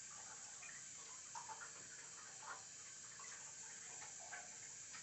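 Faint handling noise of clothing held close to the phone: a few soft rustles and light ticks over a steady low hiss.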